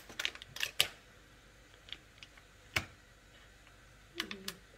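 Scattered light clicks and taps of plastic and a knife against a plastic cheese tub as its lid is held back and the white cheese is cut inside it, with a cluster of clicks in the first second and one sharper tap near the middle.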